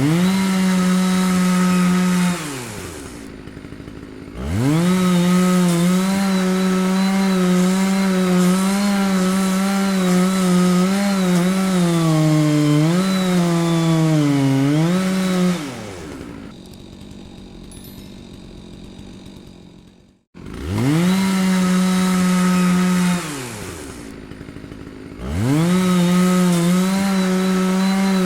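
Chainsaw revving at full throttle in long holds, falling back to a quieter idle three times in between. During the longest hold the pitch sags and recovers a few times. Just after the middle the sound cuts out briefly before the saw revs up again.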